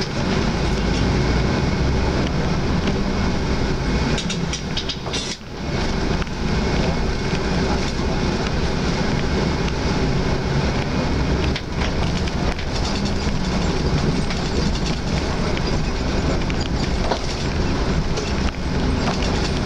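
Cabin noise inside a moving Hyundai Universe coach: steady engine hum and road rumble with small rattles, easing briefly about five seconds in.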